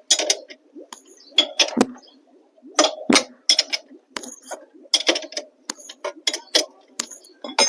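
Metal hand tools clinking: a run of sharp, irregular metallic clicks and clinks, a few a second, as work on a motorcycle's rear wheel and chain sprocket begins.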